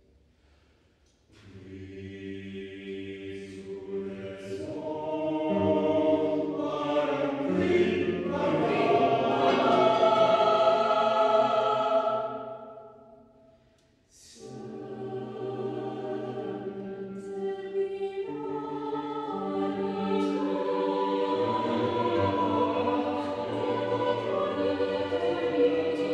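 Choir singing sustained chords. A phrase enters after a moment of near silence, swells to its loudest in the middle and dies away; a new phrase begins about halfway through and carries on.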